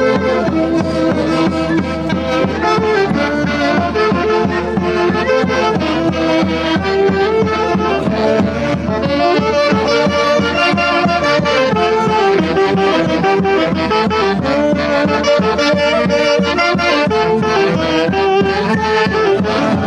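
Andean festival orchestra with saxophones playing a lively pasacalle melody over a steady beat.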